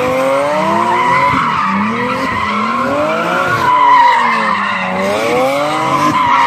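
Nissan Z-car V6 engines revving up and down over and over while the rear tyres squeal and spin in continuous donuts.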